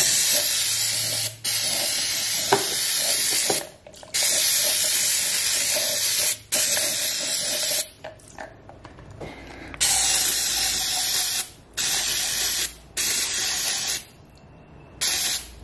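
Aerosol brake and parts cleaner sprayed onto a fuel filter housing in about eight hissing bursts, most one to two seconds long, each cutting off sharply, with short pauses between them and a longer pause about eight seconds in.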